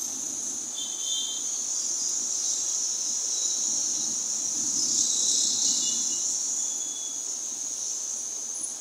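A steady high-pitched buzzing drone like an insect chorus, over a faint low noise of distant road traffic.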